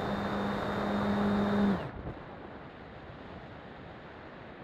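Onboard sound of a radio-controlled model plane's motor and propeller running steadily as a hum with a thin high whine over air rush. About two seconds in, the motor is throttled off and the hum and whine drop away quickly, leaving only a softer rush of wind over the airframe as the plane glides.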